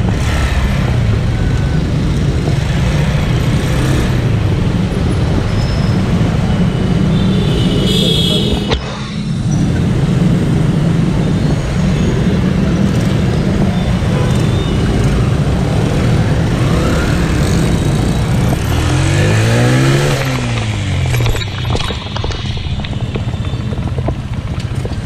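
Single-cylinder four-stroke engine of a Honda CG125 motorcycle running on the move, its pitch drifting up and down with the throttle, over road and wind noise. About twenty seconds in, the engine note rises sharply and falls back.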